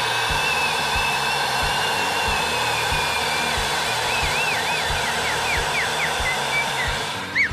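Ninja Foodi pressure cooker venting steam through its pressure release valve in a steady loud hiss, with a whistling tone that starts to waver and warble about halfway through. The hiss cuts off near the end.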